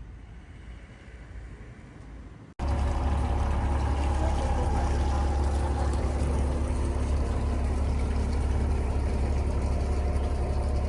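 Quiet outdoor ambience, then, about two and a half seconds in, a sudden switch to a boat's engine running steadily, heard from on board, with a heavy low drone.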